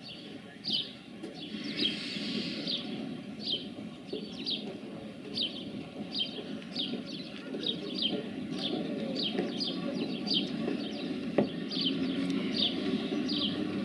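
Distant steam locomotive working, heard as a low steady rumble that grows a little near the end. Over it, a small bird repeats a short high falling chirp more than once a second, and there is one sharp click near the end.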